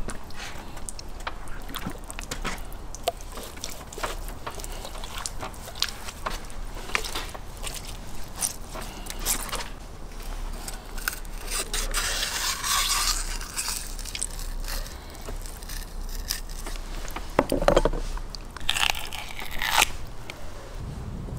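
A kitchen knife cutting and scraping through the skin and belly of a whole sturgeon on a wooden board: a run of short crunching scrapes and clicks, with longer scraping strokes around the middle and near the end.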